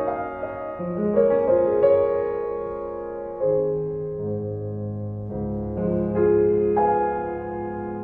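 Slow piano music: held chords that change every second or so, with deeper bass notes coming in about halfway through.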